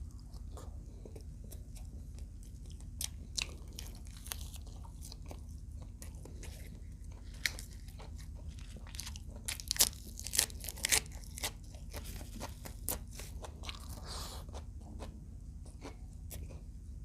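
Close-up crunching and chewing of crispy fried adobo quail, in irregular bites with a loud cluster of crunches a little past halfway, over a steady low hum.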